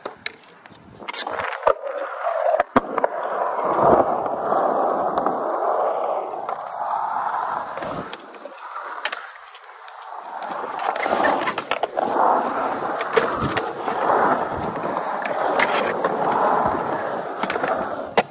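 Skateboard wheels rolling on smooth skatepark concrete, the rolling noise swelling and fading as speed changes. Sharp clacks of the board's tail and landings come several times, the last one near the end as the skater pops the board into the air for a trick.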